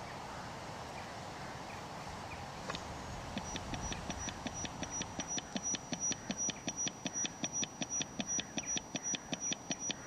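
Sonified bioelectrical signal of an octopus stinkhorn fungus (Clathrus archeri): after a steady faint hiss, a regular train of clicks, about six a second, with a thin high steady tone starts about three seconds in and grows louder. The clicks trace the fungus's action potentials, a regular pulse almost like a heartbeat.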